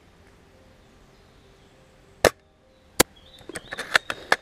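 Airsoft gunfire: two sharp single shots about three-quarters of a second apart, then a fast, irregular run of snaps and clicks near the end.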